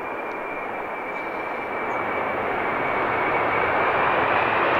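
Jet airliner engines running: a steady rushing noise with a thin high whine that slides slightly lower in pitch, growing louder over the few seconds.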